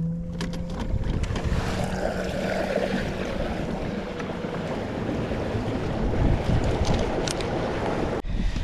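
A kayak under way on open water: water rushing and wind buffeting the microphone. Over it a motor-like whine rises just at the start, holds and fades out after about three seconds. The noise drops off sharply near the end.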